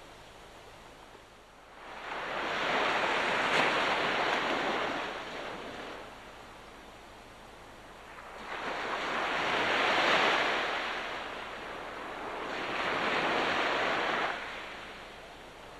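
Sea waves breaking and washing up the shore: a rushing surge swells and fades three times, with quieter lulls between.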